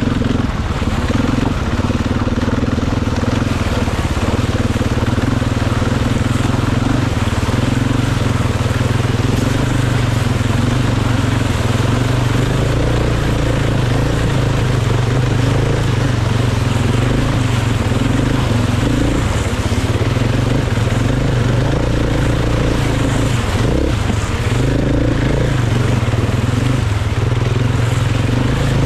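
Dirt bike engine running under way at a fairly steady pitch, with small rises and dips.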